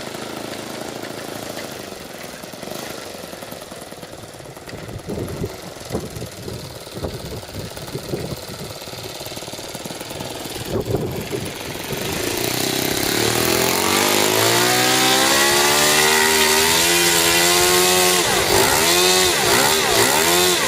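Model airplane engine in a radio-controlled Pilatus PC-9 run up to high speed about twelve seconds in, after a stretch of low rumble and rustling. It then runs loud and steady, its pitch swooping down and up several times near the end.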